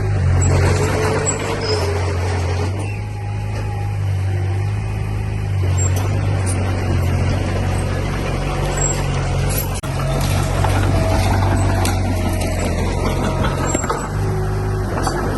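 Diesel engine of heavy earthmoving machinery running under changing load: a steady low drone that swells and eases every second or two, with faint whines above it.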